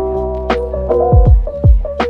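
Background music: an electronic track with held keyboard notes over deep, pitch-dropping bass kicks and a snare.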